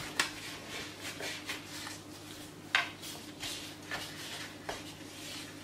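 Gloved hands rolling and stretching a roll of soft yeast dough on a wooden board. Soft handling noise with a few light taps and clicks, the sharpest a little under three seconds in. A faint steady hum runs underneath.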